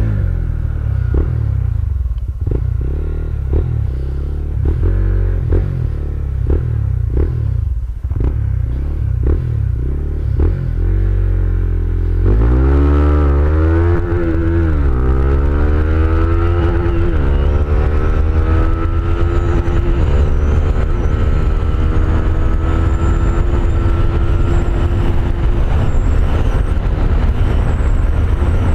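Honda GTR 150 FI single-cylinder engine, running unevenly at low revs at first. About twelve seconds in it is revved hard through the gears: its pitch rises and drops back at each upshift, about three times. It then holds a steady high note at full throttle near top speed, with wind and road noise.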